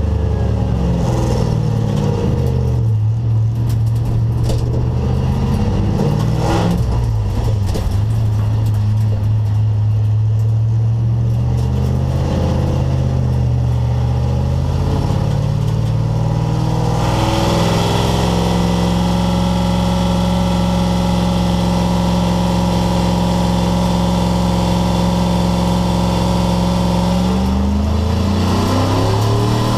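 Race car engine being driven hard: revs climbing and dropping through gear changes, then held high and steady for about ten seconds before falling away near the end as the car slows.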